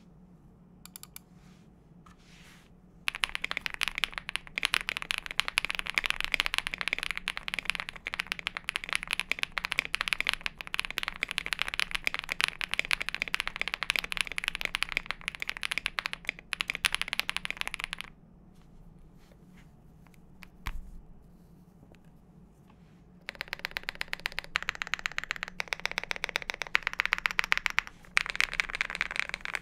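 Fast typing on a Zoom65 mechanical keyboard with lubed KTT Kang White linear switches, a polycarbonate plate, foam-filled case and HK Gaming 9009 keycaps: rapid, continuous key clacks. After a few scattered taps, typing runs steadily from about three seconds in, stops for about five seconds with a single knock, then resumes.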